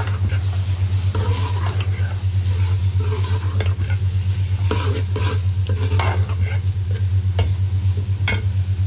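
Metal ladle stirring and scraping radish pods (moongray) frying in masala in an aluminium pot, with sizzling and irregular clinks of the ladle against the pot. A steady low hum runs underneath.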